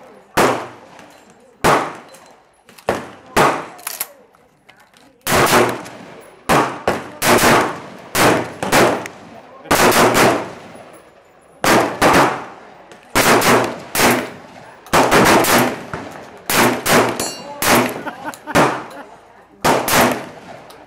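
A long string of 12-gauge shotgun shots from a Mossberg 930 SPX, a gas-operated semi-automatic, each a sharp bang with a short ringing tail; a few spaced shots at first, then shots in quick succession, about one to two a second.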